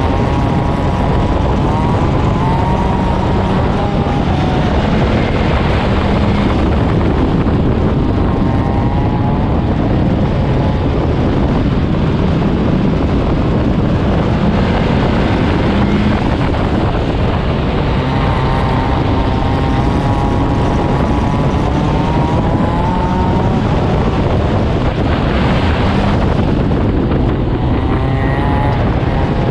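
Four-cylinder Stinger 8 figure-8 race car's engine at racing speed, heard on board, revving up and easing off several times as it accelerates out of the turns.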